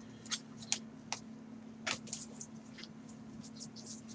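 Soft clicks and rustles of baseball trading cards and a foil pack being handled and set down on a mat by a gloved hand, a dozen or so short ticks spread unevenly, over a steady low hum.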